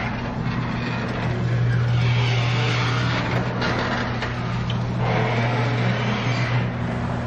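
Motorised sectional garage door opening: the opener's motor gives a steady hum while the door rattles up its tracks.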